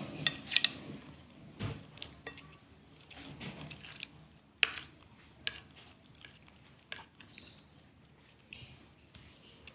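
Cutlery clinking against a plate during a meal: irregular short clinks, several close together in the first second and then scattered every second or so.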